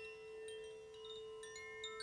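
A crystal singing bowl holds one steady low tone while tuned chimes are struck over it, a handful of high notes about half a second apart, each ringing on and overlapping the others.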